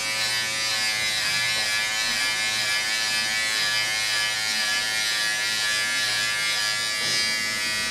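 Corded electric beard trimmer buzzing steadily as it is run over a beard, with an even, unwavering hum.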